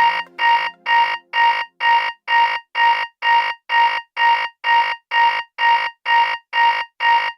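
BlackBerry Z10 alarm tone: a rapid, steady series of short, high-pitched electronic beeps, about two a second, all on the same buzzy pitch. A lower musical layer underneath drops out about a second in, leaving the beeps alone.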